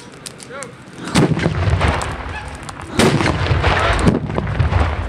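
Carbide cannons made of oil drums firing: acetylene from wet calcium carbide is ignited in each drum and goes off with a loud boom and a rumbling tail. The two biggest blasts come about a second in and about three seconds in, with another shortly after.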